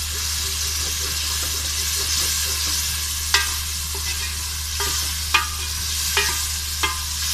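Chickpeas in an onion-tomato masala sizzling in oil in an aluminium pot as a wooden spoon stirs them. A steady frying hiss, with about six sharp knocks of the spoon against the pot in the second half.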